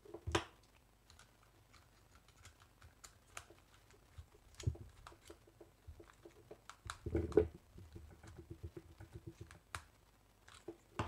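Light, irregular clicks and taps from a plastic pushbutton contact block and wires being handled while the wiring is fitted. There are a few louder knocks among them: one near the start, one a little before halfway, and the loudest about two-thirds through.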